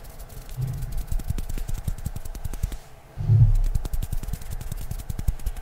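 Hands rubbing and fluttering right at a microphone, making a quick run of soft crackling clicks from skin and fingers. There are two low muffled thumps, one under a second in and a louder one about three seconds in.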